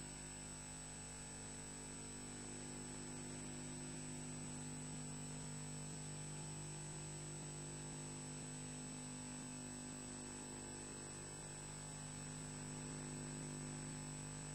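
Steady electrical hum with a faint hiss, unchanging throughout: mains or power-supply noise on a nest camera's audio feed.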